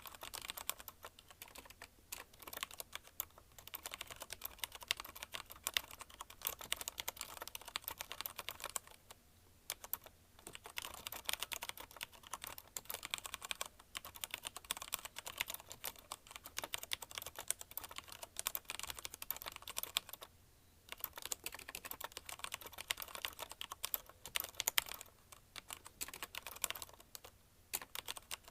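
Fast continuous typing on a CM Storm Quick Fire TK mechanical keyboard with linear Cherry MX Red switches: a dense run of rapid key clicks and clacks, broken by a few brief pauses.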